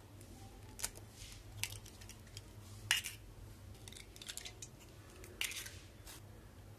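Eggs cracked open one after another into a stainless steel bowl: scattered sharp clicks and taps of shell breaking and knocking on the bowl.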